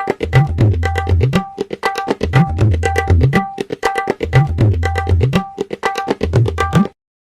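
Short comedic music cue built on tabla-style hand drums with a deep bass line. It plays a fast beat whose phrase repeats about every two seconds, then cuts off abruptly about half a second before the end.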